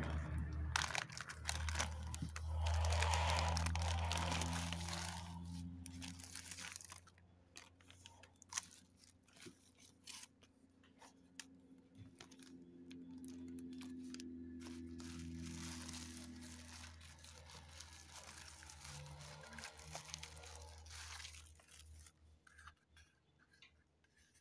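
Plastic zip-lock bag and bubble wrap crinkling and rustling as the bag is pulled open and the parts are handled, in uneven spells with small clicks. A steady low hum runs underneath.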